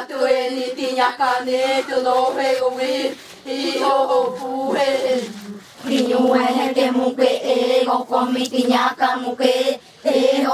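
Several women's voices chanting together in unison, repeating short syllables on a few held notes, with a brief pause about five and a half seconds in before the chant picks up again.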